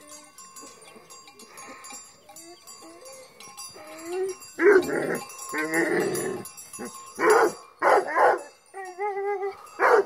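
A dog barking in loud separate bursts from about halfway through, with shorter pitched yelping calls before and between them, over faint steady ringing of bells.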